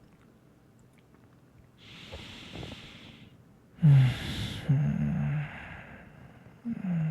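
A man breathing close to the microphone: a slow breath in about two seconds in, then a loud sighing breath out with a low hum, a second short hum, and a brief falling "mm" near the end.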